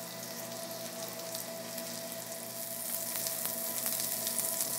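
A spice-coated chicken breast sizzling steadily in a lightly oiled pan over a gas burner, with fine crackles through the hiss as it sears on one side. A faint steady hum sits underneath.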